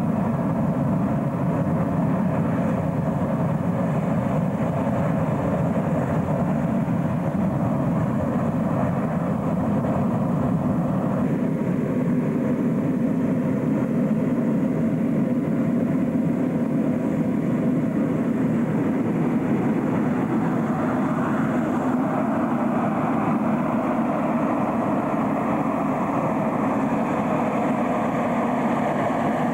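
Petrol-engined inflator fan running steadily while a hot air balloon envelope is filled and stood up, its note shifting slightly about 11 seconds in.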